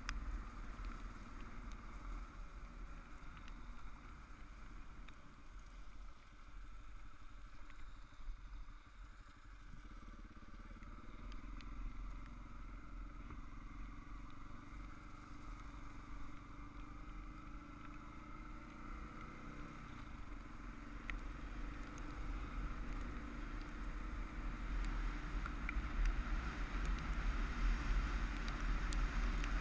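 Adventure motorcycle riding on a gravel track, its engine running under a steady wind rumble on the camera's microphone. It eases off about a third of the way through and grows louder again toward the end.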